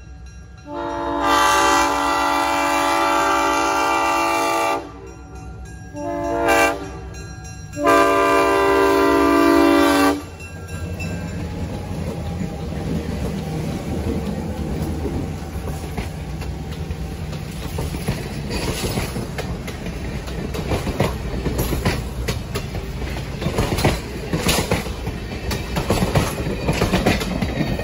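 Diesel locomotive air horn blows three times (long, short, long) as the train approaches. Then the diesel locomotives rumble past close by, followed by passenger cars with their wheels clicking over the rail joints.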